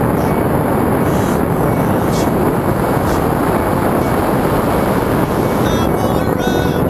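Strong, steady wind rushing over the harness-mounted camera's microphone during tandem paraglider flight.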